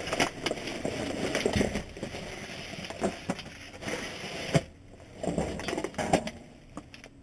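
Hands rummaging through bagged trash in a dumpster: crinkling plastic and rustling with many small clicks and knocks, busiest for the first four or five seconds, then quieter with a few short bursts.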